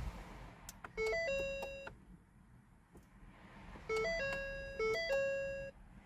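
Electronic dashboard warning chime of a 2010 Ford Taurus, sounding on ignition-on. A short run of chime notes stepping up and down in pitch plays twice, about three seconds apart.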